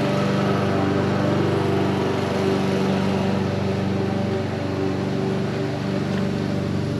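An engine running at a steady speed, a constant even hum that does not rise or fall.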